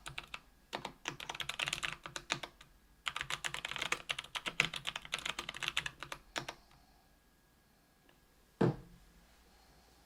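Typing on a KBDfans Tofu 65% aluminium-case keyboard with Kailh BOX Brown tactile switches lubed with Krytox 205g0: a steady run of key strokes, a brief pause, then another run that stops about two-thirds of the way through. A single low thump follows a couple of seconds later.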